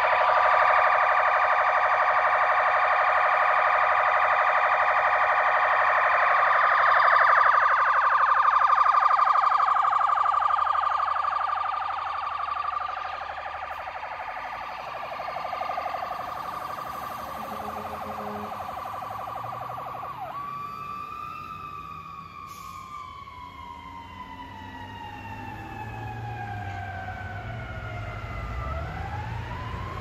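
Fire engine's siren on its rapid, pulsing 'phaser' tone, loud at first and growing fainter as the truck pulls away. About two-thirds of the way through it switches abruptly to a slow wail that falls steadily in pitch and begins rising again near the end.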